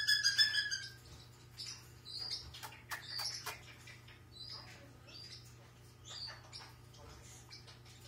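Parrot squawking in distress while restrained: a loud, rapidly pulsing screech in the first second, then short scattered chirps and squeaks that grow fainter after about four seconds.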